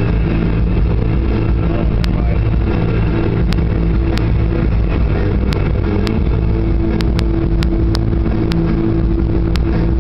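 Steady road and engine rumble inside a car cabin at highway speed, with a few faint sharp ticks scattered through it.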